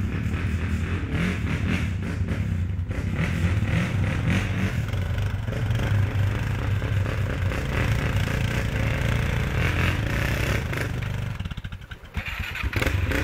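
ATV engine running steadily as the quad is ridden. About two seconds before the end the sound briefly drops away, then picks up again.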